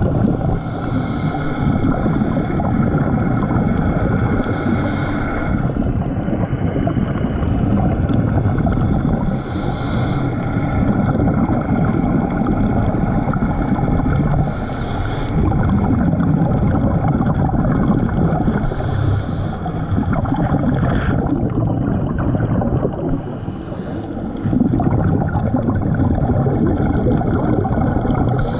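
Scuba diver breathing through a regulator underwater: a hiss of breath about every five seconds over a steady low rumble.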